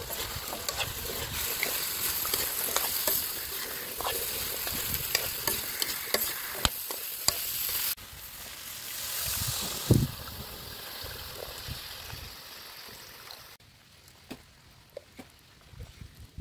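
Cubes of squash sizzling in hot oil in a steel wok, with many small crackles and the scrape and clink of a metal spatula stirring them. The sizzle breaks off abruptly about halfway through, then drops to a faint hiss with scattered clicks near the end.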